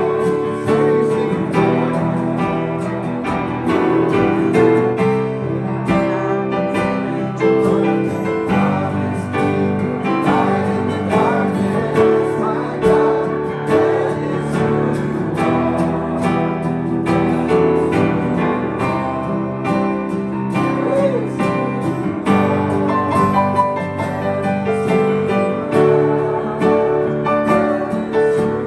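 Acoustic guitar strumming and a Yamaha keyboard playing piano chords in a slow song, with voices singing along.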